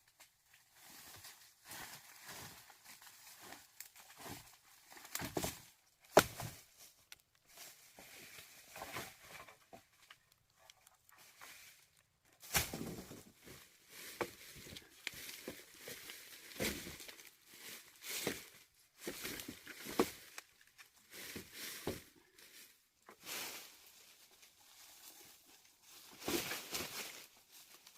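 Irregular handling noises: rustling and crinkling with scattered knocks and clicks, the sharpest knock about six seconds in.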